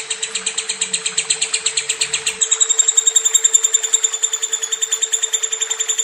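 Lovebird's 'ngekek' song: a long, rapid, high chattering trill of about a dozen notes a second, sustained for a long duration. About two and a half seconds in it turns smoother and slightly lower. A steady low hum runs underneath.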